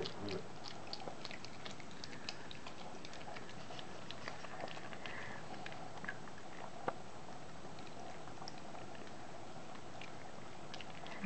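Toy poodle puppies chewing treats: scattered small clicks and crunches, most frequent in the first few seconds, with a louder click about seven seconds in.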